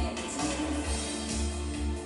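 Music playing from a vinyl record on a Fisher MT-6360 direct-drive turntable, with a steady pulsing bass beat.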